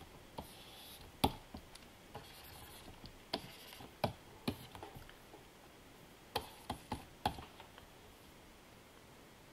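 Stylus tapping and scratching on the glass of a Wacom Cintiq pen display during digital painting: irregular sharp taps, some in small clusters, with faint scratchy strokes between them.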